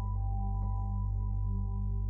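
Ambient new-age background music: a low steady drone under soft bell-like notes that ring on, with one new note struck just over half a second in.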